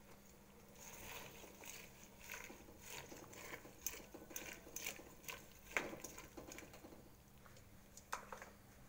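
Metal tongs clicking and scraping against an aluminium pot while water spinach is pushed down into boiling water: a run of faint, irregular light clicks, with sharper knocks about six seconds in and again near the end.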